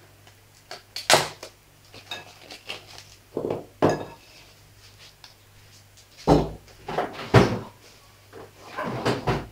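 Cling film crinkling as hands press it down around a glass bowl of rising brioche dough, with several irregular knocks and scrapes of the bowl against the worktop. A faint steady low hum runs underneath.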